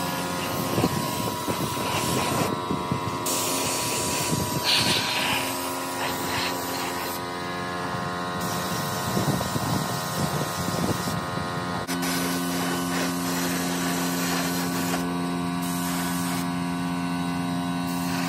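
Compressed-air gravity-feed spray gun hissing in bursts as it sprays tractor panels. About twelve seconds in, a steady low hum takes over.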